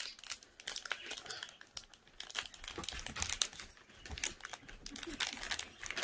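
Foil wrapper of a Pokémon card booster pack crinkling and crackling in the hands as someone works at tearing it open.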